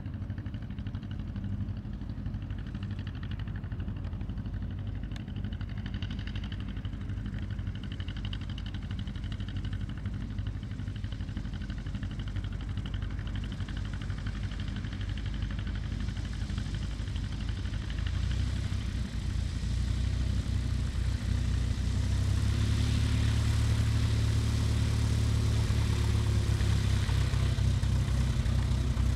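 Mooney M20F's four-cylinder Lycoming engine and propeller running steadily at low taxi power. It grows louder about two-thirds of the way through as the plane taxis up close.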